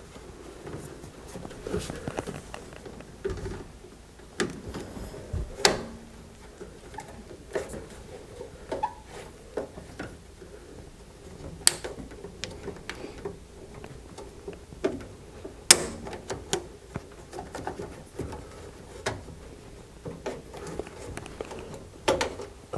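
Scattered handling noises, light knocks and clicks as a small tube is worked loose from a gas furnace's draft inducer assembly, with three sharper clicks about 6, 12 and 16 seconds in.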